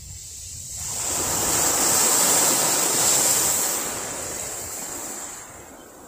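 A wave breaking and washing up the beach: a rush of surf that swells about a second in, is loudest in the middle and then fades away.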